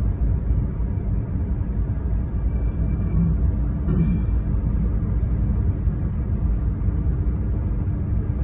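Road and engine noise inside a moving vehicle's cabin, a steady low rumble with a faint steady hum, as it drives on a snow- and ice-patched highway. Brief faint high-pitched sounds come in about three and four seconds in.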